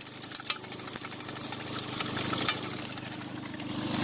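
Keene 151S dry washer's small gas engine running steadily, with scattered sharp clicks and rattles of gravel and rock over the machine.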